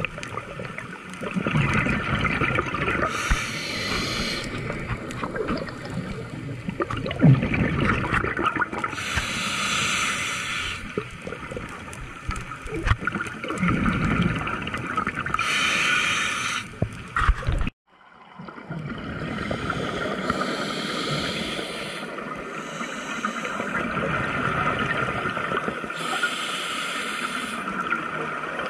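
Scuba diver breathing through a regulator underwater: exhaled bubbles hiss and gurgle in bursts of about a second and a half, roughly every six seconds, over a low underwater rumble. The sound drops out briefly about two-thirds of the way in.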